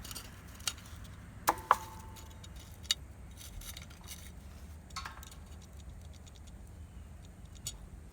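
Scattered small metal clicks and clinks as electric motor parts are handled, two of them leaving a brief ringing note, over a faint low hum.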